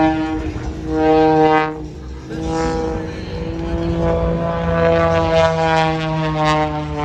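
Propeller aerobatic plane's engine and propeller, surging loud and soft in about one-second pulses as the plane tumbles, then settling into a steadier drone with a slightly wandering pitch as it pulls out and flies level.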